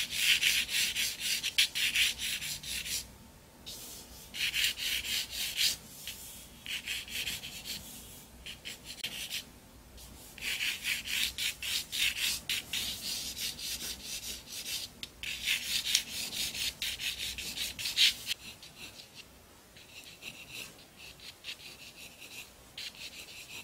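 4B graphite pencil scratching on drawing paper in quick back-and-forth strokes, coming in runs of a few seconds with short pauses between. The strokes are quieter near the end.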